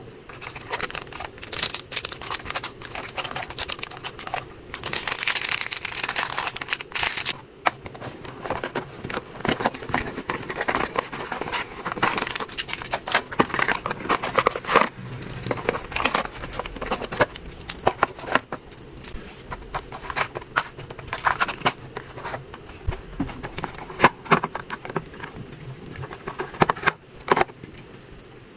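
Packaging being handled and packed by hand: irregular crinkling and rustling with many small clicks and taps.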